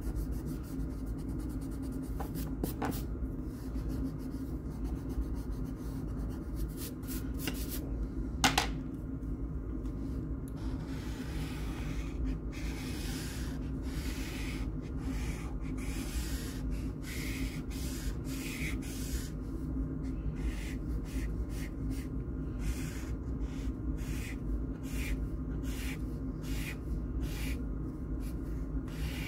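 A pencil eraser rubbing on sketchbook paper, then a felt-tip marker scratching back and forth in quick repeated strokes as a shape is coloured in. This runs over a steady low hum, with one sharp click about eight seconds in.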